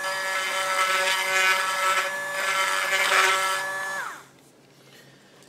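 Handheld rotary tool running at a steady high whine, its bit grinding excess PLA out of the bearing pocket of a 3D-printed gear. It winds down about four seconds in.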